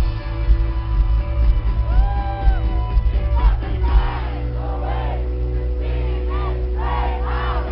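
Indie rock band playing live, drums hitting through the first few seconds. About halfway through, many voices come in, singing and shouting along over a held bass.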